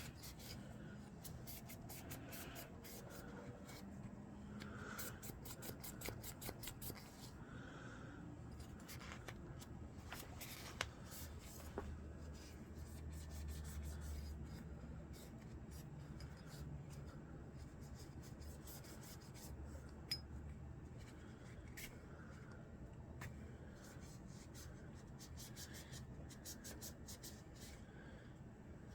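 Faint scrubbing of carbon buildup off pistol parts with a cleaning pad: quick scratchy rubbing strokes that come in bursts.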